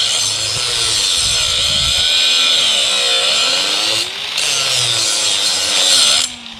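Angle grinder grinding steel tubing to shape fish-mouth notches, its motor pitch sagging and recovering as it is pressed into the metal. It eases off briefly about four seconds in and cuts off near the end.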